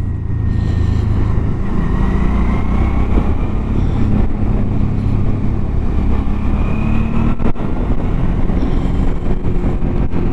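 Motorcycle engine running on the move, its pitch rising gently through the middle as the bike speeds up, over a steady rush of wind and road noise.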